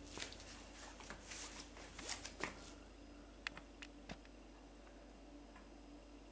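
Faint rustling and handling noise for the first couple of seconds, then three soft clicks a little past the middle, over a low steady hum.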